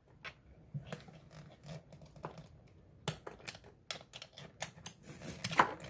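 Small metallic clicks and scrapes of a pocket-knife blade being worked inside a 4-pin wafer lock to pick it, irregular at first and coming faster from about halfway through.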